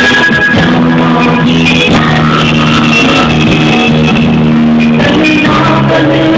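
Loud rock music: guitar with drums and bass playing steadily.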